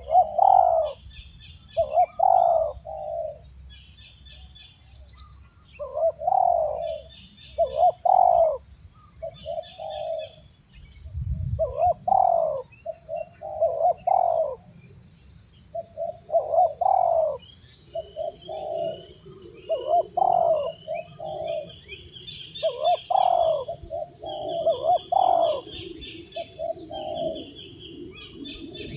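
Spotted doves cooing over and over, each phrase a short group of two or three notes repeated every couple of seconds, with small birds chirping higher in the background.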